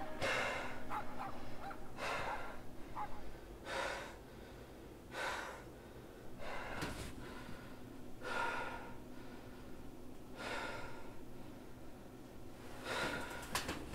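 A man breathing heavily: a string of loud, gasping breaths about every one and a half seconds.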